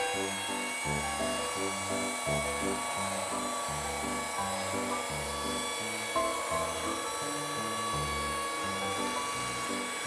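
Background music with a steady, stepping bass line, over the steady hiss of a portable bandsaw mill running through a log.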